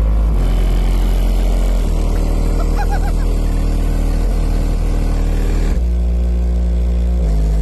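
Loud bass music from a single Sundown Audio ZV3 subwoofer in a car, heard from outside: deep sustained bass notes that shift in pitch every second or two.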